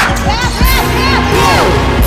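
Music playing over basketball game noise: crowd shouting and cheering, with several short high squeals that rise and fall, and low thuds.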